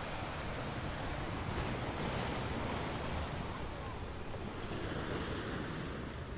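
Sea surf washing against the rocks of a stone breakwater, a steady rush of waves.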